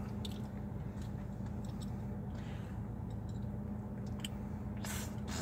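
Steady low hum of an idling car heard inside the cabin, with a few faint wet mouth clicks as fingers work at gauze in a freshly extracted tooth socket, and a brief rustle near the end.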